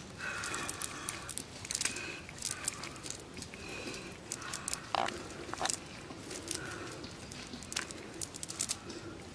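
Scattered crackling and rustling clicks as a cast net full of small fish is handled on muddy ground.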